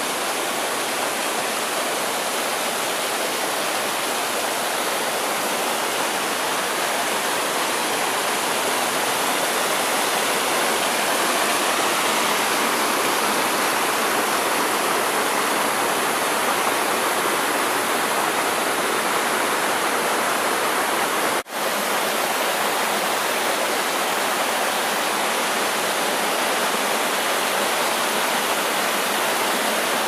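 Mountain stream and small waterfalls rushing steadily, a constant splashing flow, broken by a momentary drop-out about two-thirds of the way through.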